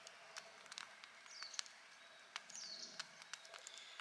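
Small wood campfire crackling, with sharp irregular pops, and a bird chirping twice in the background.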